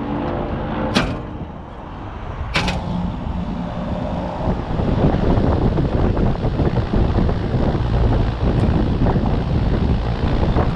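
Trane outdoor air-conditioning condenser running on test with its newly fitted condenser fan motor: a steady hum with two sharp clicks early on, then from about four seconds in a loud, fluttering rush of air over the microphone.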